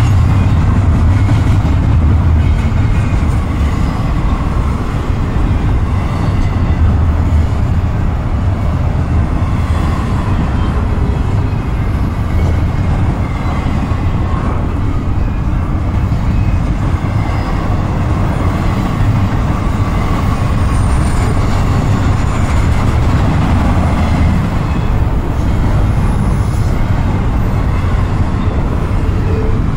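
Double-stack intermodal container train rolling past: the steady, loud, deep rumble of its well cars' steel wheels on the rails.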